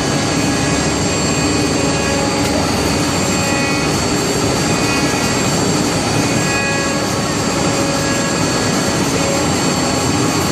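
Multi-head four-axis wood CNC router running, its spindles cutting wooden sofa legs: a loud, steady machining noise with a steady high whine through it.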